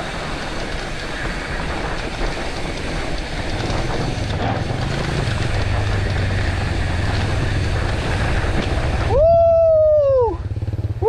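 Steady rush of wind and tyre noise from a mountain bike rolling down a dirt trail. About nine seconds in this cuts off and a loud pitched tone takes over, sweeping up and back down over about a second, then stopping.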